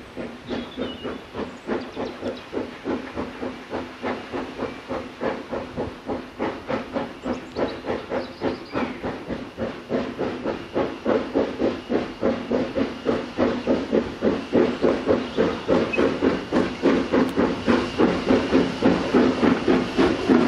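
Saddle-tank steam locomotive working a passenger train, its exhaust chuffing in an even beat of about three a second over a hiss of steam, growing louder as it approaches.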